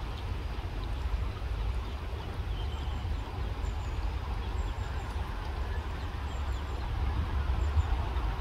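Shallow stream running over stones under a steady low rumble, with faint, short, high peeps of eastern spot-billed duck ducklings scattered through it.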